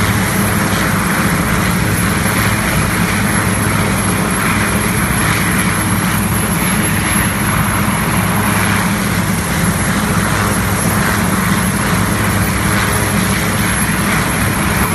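Navy Sea King helicopter running on the ground, a loud, steady engine drone with a constant low hum.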